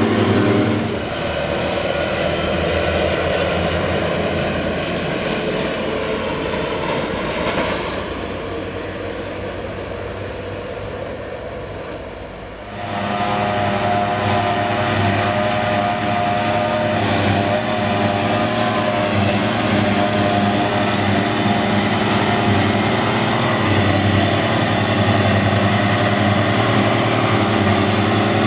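A tractor engine pulling a loaded silage trailer, getting steadily quieter as it draws away. About twelve seconds in, the sound switches to a John Deere 7400 self-propelled forage harvester running steadily as it chops grass and blows it into a trailer towed alongside by a tractor, with a steady high whine over the engine.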